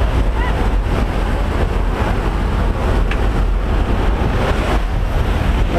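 Loud, steady drone of a light aircraft's engine and propeller with rushing air, heard from inside the cabin.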